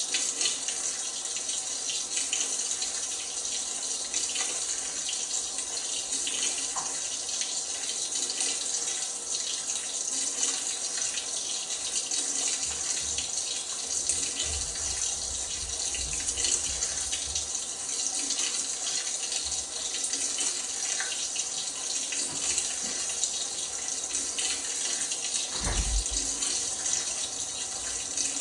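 LG washing machine filling with water: a steady hiss of water running into the drum, with a low thump near the end.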